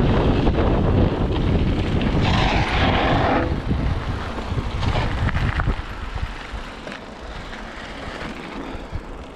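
Wind buffeting the microphone and knobby tyres rolling over a dirt trail as a mountain bike rides downhill, with a brief hiss about two seconds in; the rumble eases after about six seconds as the bike slows and rolls onto pavement.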